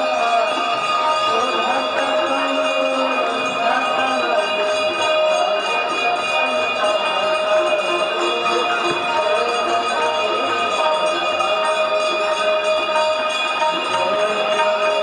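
Bells ringing without pause over devotional music, with a wavering sung or played melody: the sound of a Ganga aarti ceremony.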